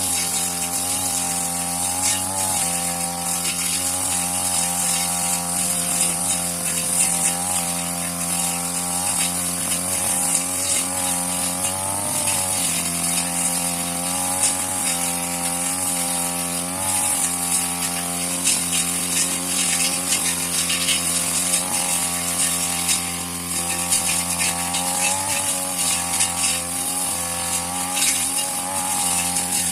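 Grass-cutting machine (brush cutter) with a small engine running at high revs, its pitch dipping briefly several times as it bogs down in the grass, under a steady high hiss.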